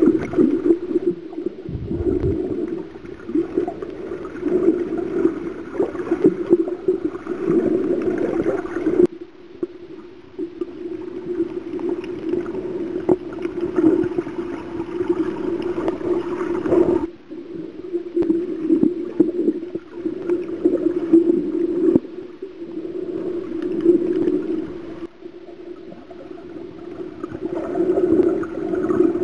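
Muffled underwater water noise picked up by a submerged camera while snorkeling: a low, wavering gurgle of moving water that swells and fades and changes abruptly several times.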